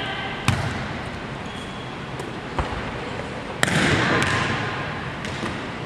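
Volleyball drill in an echoing gymnasium: several sharp slaps of the ball off hands and the hardwood floor. The loudest hit comes about three and a half seconds in and rings on in the hall's echo.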